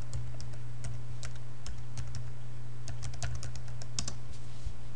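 Computer keyboard typing: irregular keystrokes as a username and password are entered, in a quick cluster near the end, over a steady low hum.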